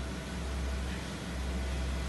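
Mazda 3 engine idling steadily with a low hum, just after being remote-started by a Viper SmartStart system.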